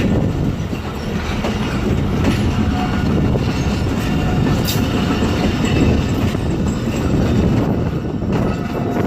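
Train wheels rolling slowly over rail joints and track switches during shunting: a steady rumble with irregular knocks and clatter, one sharp click about halfway through, and a faint thin squeal from the wheels.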